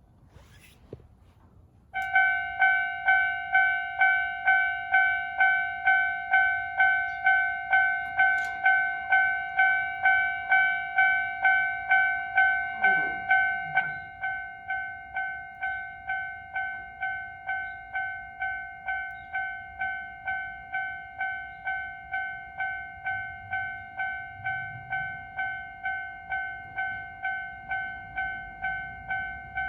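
Japanese railway level-crossing warning bell starting up about two seconds in, ringing a steady 'kan-kan' of about two strikes a second, the signal that a train is approaching. About halfway through the ringing drops to a noticeably quieter level and carries on.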